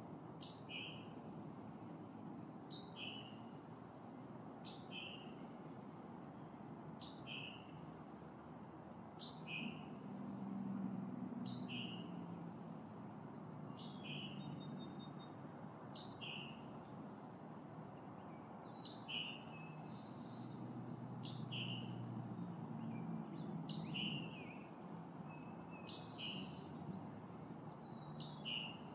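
A songbird repeats one short, high call that slides downward, about once every two seconds, with a few other faint chirps joining in the second half. Under it runs a low, muffled rumble that swells twice.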